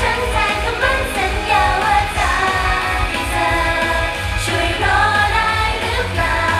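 A female idol group sings an upbeat pop song over a backing track with a steady bass beat, played loud through stage PA speakers.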